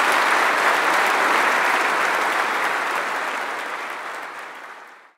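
Audience applauding steadily, fading away over the last two seconds and then cutting off abruptly.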